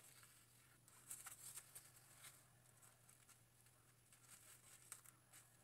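Near silence: faint crinkling and ticking of a plastic highlighting cap as strands of hair are pulled through its holes, over a low steady hum.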